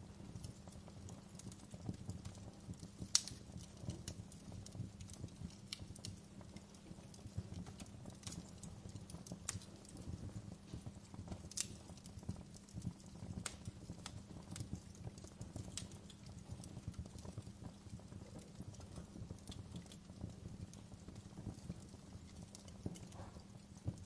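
Wood fire burning in an open fireplace: logs crackling with irregular sharp pops, a few of them louder, over a steady low rumble.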